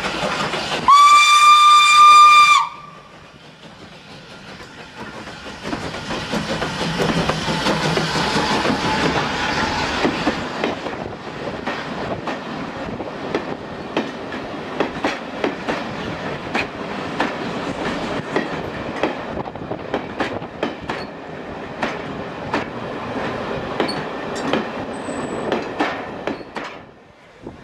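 Steam locomotive whistle: one loud blast of about a second and a half, steady in pitch and dropping away at its end. Then the engine's noise swells as it draws past, followed by the coaches' wheels clicking over the rail joints, fading near the end.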